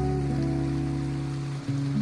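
Background music with held chords over a steady low bass, changing chord near the end.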